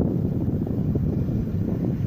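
Wind buffeting the microphone, a loud, fluttering low rumble with no steady tone.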